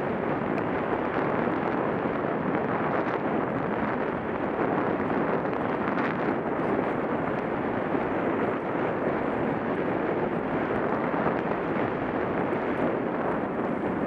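Steady rushing noise of a mountain bike descending a dirt singletrack: wind buffeting the camera microphone, mixed with the tyres rolling over the dirt, with occasional faint clicks.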